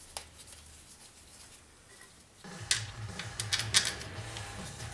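A few sharp metallic clicks and clinks as bolts are handled and fitted into a transmission pump. Background music comes in about halfway through.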